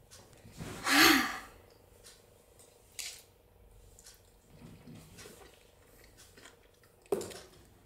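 A steel plate set down on a desk with a short scrape about a second in, then a few sharp clicks of a spoon against the plate.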